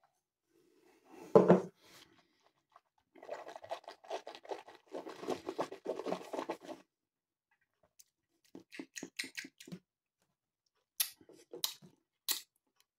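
Someone sipping brandy from a glass, with a louder sip about a second and a half in. Then wet mouth sounds as the brandy is tasted: smacking lips and small clicks in irregular runs. The glass is set back down on the counter.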